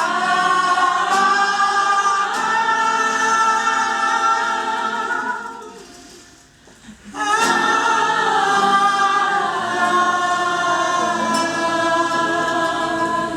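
A group of voices singing together in long held chords, two sustained phrases with a short break about six seconds in.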